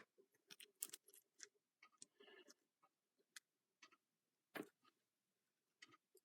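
Faint, scattered clicks and light metallic taps of small parts being handled as a washer is fitted onto the shaft of a tractor hydraulic pump, with one sharper click about four and a half seconds in.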